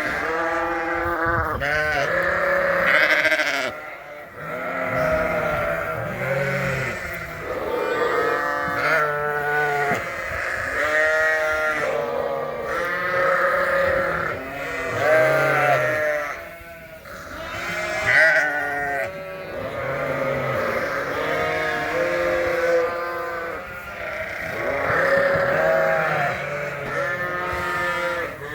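A flock of sheep bleating loudly, many overlapping calls with hardly a break: hungry sheep and lambs calling for food at feeding time.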